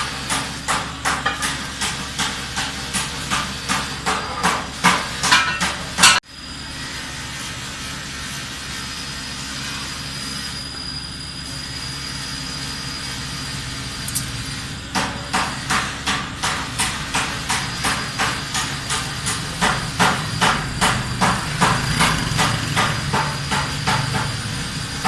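A hand hammer striking in quick, even blows, about three or four a second. The blows stop for several seconds in the middle, then start again and run on.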